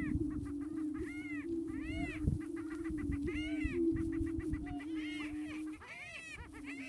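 Greater prairie-chickens booming: a near-continuous low, steady hooting drone, broken briefly near the end, with repeated high arching cackles and whoops from the birds layered over it.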